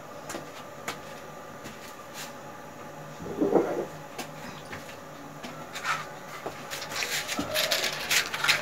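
Scattered clicks and knocks of pots and a gas stove being handled, with a fuller knock about three and a half seconds in. Near the end comes a quick run of clicks as the burner under the pot of oil is lit.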